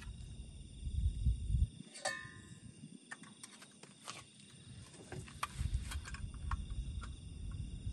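Clicks, knocks and rustling of gear being handled in a car's cargo area, including a metal gas canister, with a brief ringing clink about two seconds in. Insects call steadily behind it.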